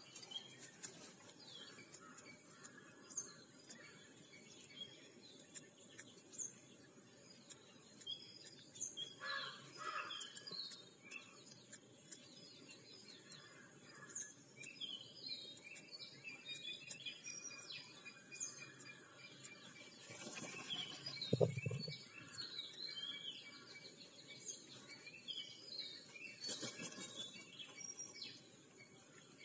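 Small birds chirping and twittering in the background: short high calls scattered throughout. A single short, louder low sound comes about two-thirds of the way in.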